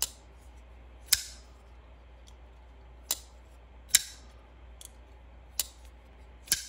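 WE Knife Orpheus flipper knife being flicked open and closed. The blade snaps out of a very snappy detent and locks, and closes again, each time with a crisp click. About six sharp clicks come at uneven gaps of one to two seconds, with one fainter click in between.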